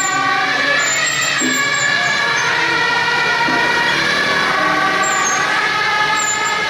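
Loud, steady horn-like tones from the horn loudspeaker on the procession's lead truck: several pitches held together, with lower notes starting and stopping.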